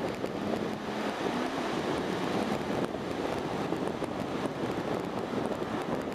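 Ocean surf breaking and washing up the beach, mixed with wind buffeting the microphone in a steady rushing noise.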